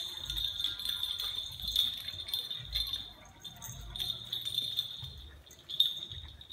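A small bell on a dog's collar jingling almost without pause as dogs play-wrestle, with soft low thumps of their bodies and paws.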